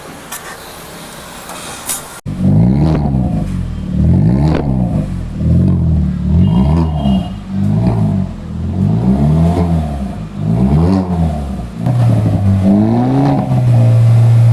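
Hyundai Verna's exhaust through an aftermarket sports silencer as the engine is revved in repeated blips, each rising and falling in pitch, starting suddenly about two seconds in. Near the end the revs are held steady for a couple of seconds.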